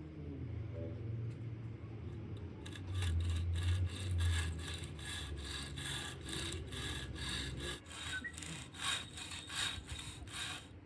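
Rapid, repeated rasping strokes of something being scraped or sawn by hand. They start about three seconds in, over a low rumble that fades out near the eight-second mark.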